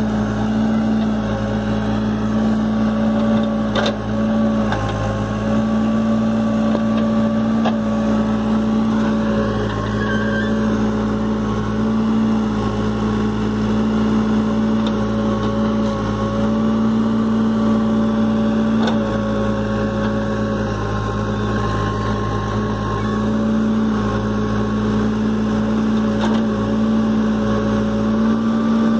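New Holland backhoe loader's diesel engine running steadily under hydraulic load while the rear bucket digs and loosens earth, its pitch dipping and recovering slightly as the arm works. A few brief knocks stand out, three times.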